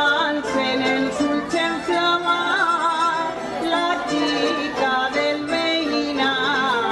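A live folk jota played by a plucked-string band with guitars, with a solo voice singing a wavering, ornamented melody over the strummed and plucked accompaniment.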